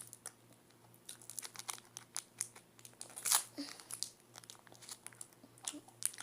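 Plastic sweet wrapper being crinkled and handled, a run of quick crackles with one longer, louder crackle a little past halfway.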